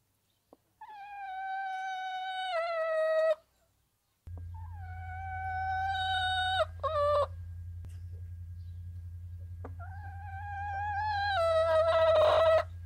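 Three long, drawn-out animal calls, each lasting about two and a half seconds, holding one steady pitch and then dropping a step just before it ends. A steady low hum starts after the first call and continues.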